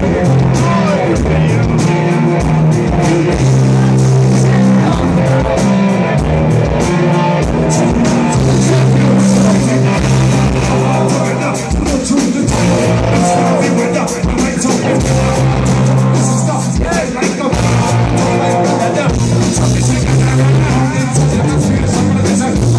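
Rock band playing live: electric guitars, bass and a drum kit keeping a steady beat, with a singing voice.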